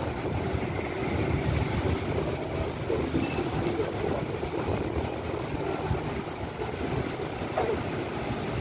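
Low, steady rumble of a diesel-electric locomotive hauling a passenger train while it is still far off and approaching slowly.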